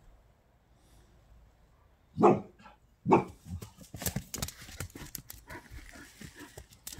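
Dogs playing rough: two loud barks, about two seconds in and again a second later, then a run of quick rustles, scrapes and smaller yelps as they scuffle.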